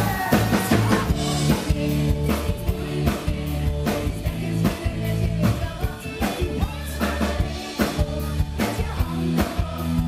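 Live pop band playing: a drum kit keeps a steady beat over bass and keyboard, with singers' vocals on top.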